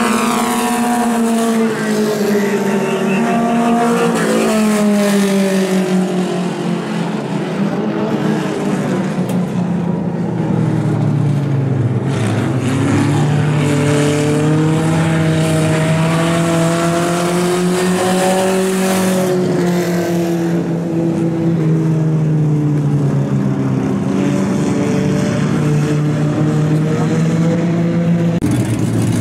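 Several four-cylinder mini stock race cars running hard around a dirt oval. The engine pitch rises and falls over a few seconds at a time as the cars accelerate and lift for the turns.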